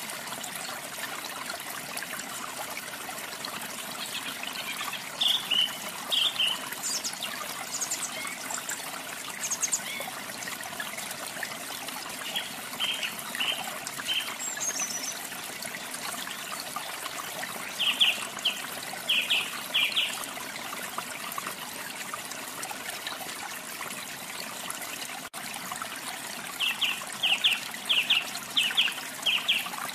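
Steady trickle of running water with canaries chirping over it in short bursts of quick repeated notes, several times through the stretch. The longest and loudest run of chirps comes near the end.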